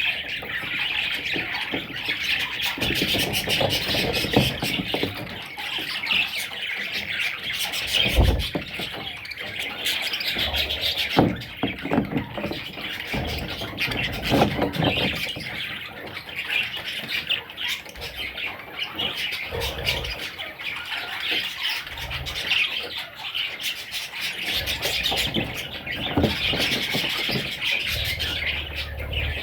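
Pet budgerigars chattering and warbling without pause, with squawks mixed in and a few short low thumps.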